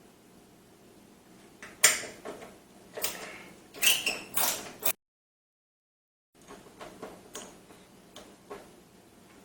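Screws being undone from a steel PC case with a screwdriver: a few sharp metallic clicks and scrapes, the sound cutting to dead silence for about a second and a half midway, then only faint small clicks.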